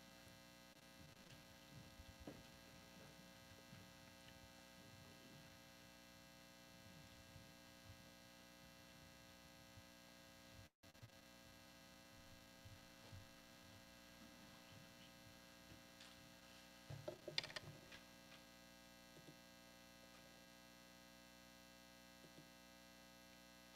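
Near silence over a steady electrical mains hum from the audio feed, with a few faint knocks and rustles, the loudest cluster about two-thirds of the way through. The feed cuts out completely for an instant near the middle.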